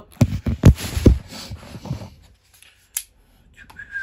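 Handling noise from the recording phone being picked up and moved: a run of loud thumps and rustling in the first two seconds, then a single sharp click about three seconds in.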